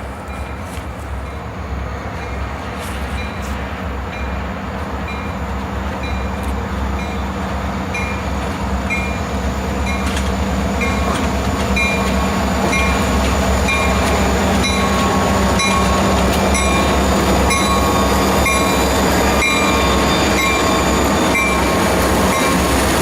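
Grade crossing bell ringing steadily, about two strokes a second, while an EMD SD40-2 diesel locomotive approaches with its engine rumble growing louder.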